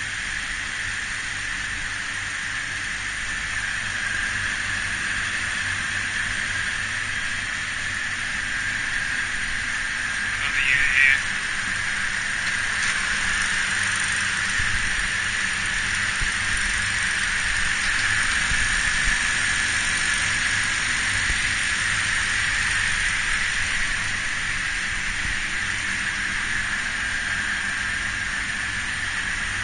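A refrigeration condensing unit running steadily: a Copeland semi-hermetic compressor and its condenser fans, a constant hum and hiss, with a brief louder noise about eleven seconds in. Its condenser is clogged with dirt, so little air moves through it, and the unit is suspected of tripping out on high pressure.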